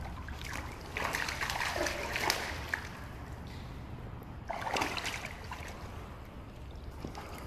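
Water splashing in two bursts, about a second in and again about five seconds in, as a hooked trout thrashes at the surface and is scooped into a landing net.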